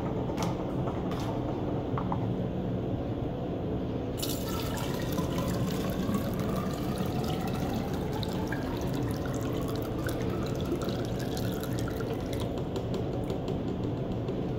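Water poured from a cut-down plastic soda bottle through a funnel into a tall plastic graduated cylinder, starting about four seconds in after a few light clicks. The splashing carries a pitch that rises steadily as the cylinder fills.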